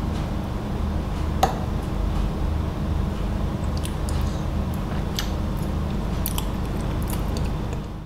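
A steady low hum with scattered light clicks; about one and a half seconds in, a metal fork clinks once against a ceramic plate. The sound cuts off near the end.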